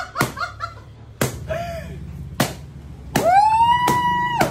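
Handheld lighter clicked over and over, about once a second, misfiring without catching: sharp single clicks. Near the end a person lets out a long high-pitched squeal, just over a second long, the loudest sound here.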